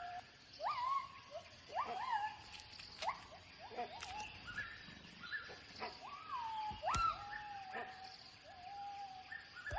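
Gibbons calling in a territorial display: a continuous run of whooping notes, one or two a second, each swooping sharply up in pitch and then levelling off. Some notes overlap, and there is a sharp knock about seven seconds in.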